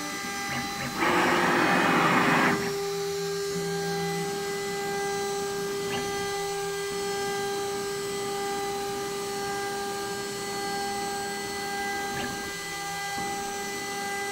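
DIY CNC router spindle running with a steady high whine. A loud rushing noise comes in about a second in and lasts about a second and a half, and there are two faint clicks later on.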